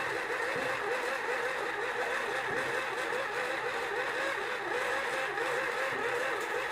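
Small electric motor of a toy mini pottery wheel whirring steadily as the wheelhead spins with wet clay being shaped on it, its tone wavering in a quick repeating cycle a few times a second.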